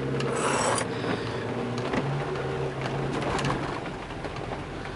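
Fiat Brava 1.6 16V heard from inside the cabin while driving: a steady low engine hum, a short rubbing scrape about half a second in, and scattered small clicks and rattles.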